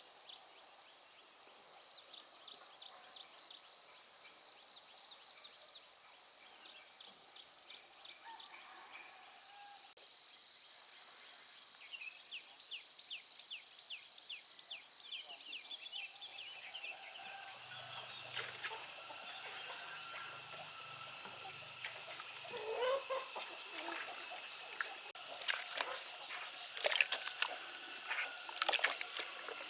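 Outdoor farmyard sounds: poultry calling over a steady high-pitched hum and fast trilling pulses. From a little past halfway, a run of sharp clicks and knocks comes in and grows louder toward the end.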